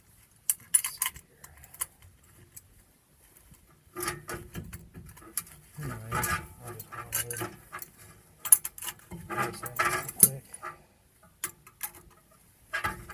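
Metal tool parts clinking and rattling in three short bouts as a brake caliper piston compression tool and its adapters are handled and fitted against the caliper.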